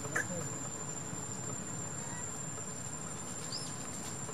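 Insects buzzing in one steady high-pitched tone over a low background rumble, with a short chirp just after the start and another small chirp about three and a half seconds in.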